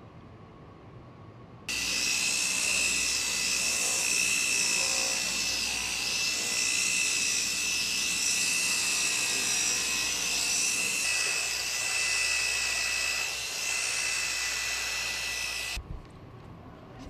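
Rotary polishing machine running with a steady high whine as its spinning pad buffs a trim piece. It starts suddenly about two seconds in and cuts off near the end.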